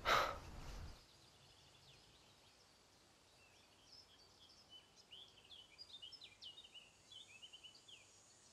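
Faint songbird chirping in quick, varied, sliding notes, starting about four seconds in. It follows a brief burst of noise at the very start.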